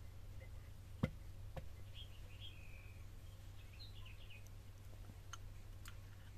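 Faint bird chirps over a steady low hum, with a single knock about a second in, a dish being set down, and a few light clicks of dishes and jars being handled.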